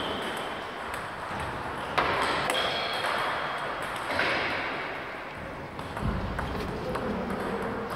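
Table tennis balls clicking off bats and tables, several rallies going on at once. Single clicks come at first, then quicker runs of clicks from about four seconds in, when a rally starts at the nearest table.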